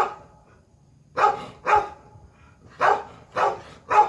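A dog barking: six short, sharp barks coming in quick pairs and threes with brief pauses between.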